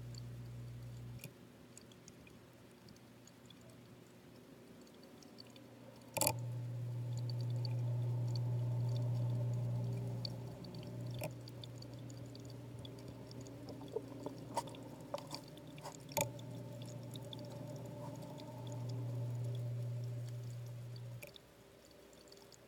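Underwater sound picked up through a sealed camera housing submerged in an aquarium: a muffled low hum that cuts in and out, stopping about a second in, returning about six seconds in and again near the end. Scattered sharp clicks and knocks from handling the housing, the loudest about six seconds in, with a cluster around fourteen to sixteen seconds.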